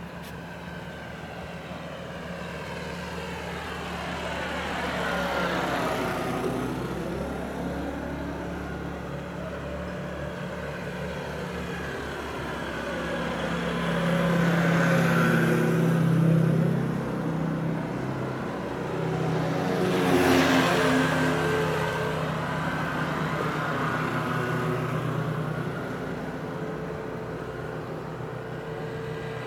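Road traffic: motor vehicles driving past on the street, their engine hum swelling and fading. There are two clear passes, one about six seconds in and the loudest about twenty seconds in.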